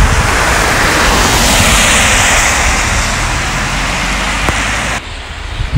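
Car tyres hissing on a wet road as a car drives past, the hiss swelling and then easing off, with wind rumble on the microphone underneath; it cuts off abruptly about five seconds in.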